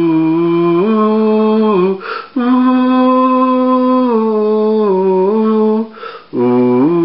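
A voice humming a slow tune without words, in long held notes that step up and down in pitch, with a short breath taken about two seconds in and again about six seconds in.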